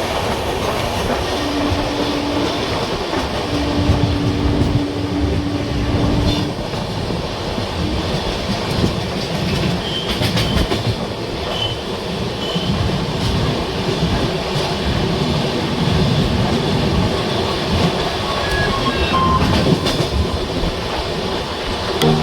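Passenger train running along the track, heard from on board, with the wheels clattering rhythmically over the rail joints. A held low tone sounds twice in the first six seconds.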